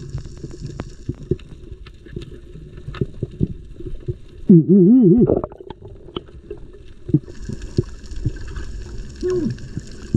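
Underwater sound through a camera's housing: a low rumble of water with scattered sharp clicks. About four and a half seconds in, a loud, wavering bubbling gurgle lasts under a second, and a smaller one comes near the end.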